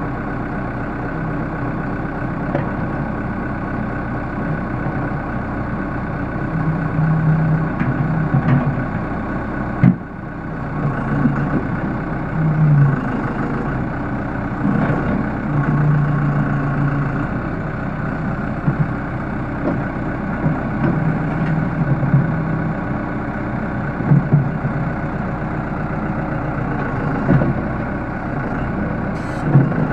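Case 580L backhoe's diesel engine running steadily, with its note swelling briefly every few seconds and a few sharp knocks.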